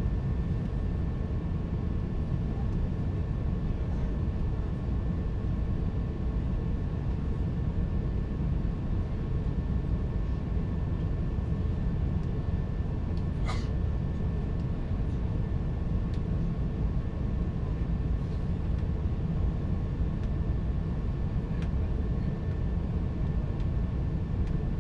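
Steady in-flight cabin noise of an Airbus A350: a low, even rumble of engines and airflow, with two faint steady tones above it. A single brief click about halfway through.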